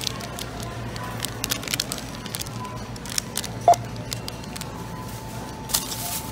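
NCR self-checkout scanner giving a single short beep about halfway through as an item is scanned. Plastic shopping bags rustle and items are handled throughout.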